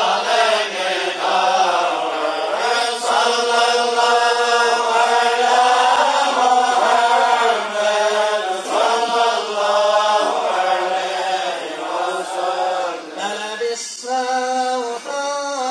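A group of men chanting a devotional Mawlid hymn together in unison, a slow melody of long held notes.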